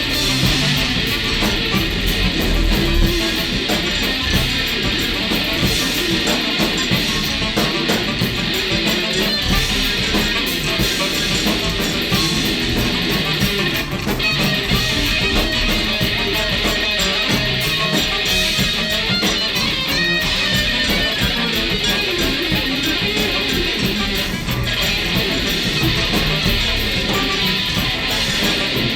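Dense, loud free-jazz band playing without a break: electric guitar to the fore over bass and busy drums.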